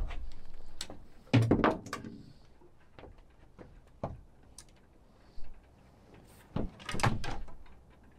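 Irregular knocks and clunks of fishing rods and tackle being handled against a small boat, the loudest about one and a half seconds in, with a few more scattered through.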